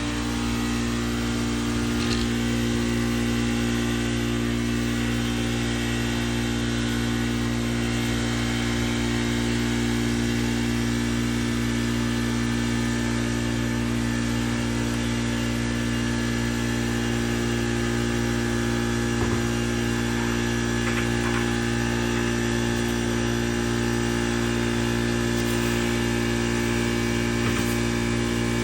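A motor running at a steady, unchanging speed, a constant low hum.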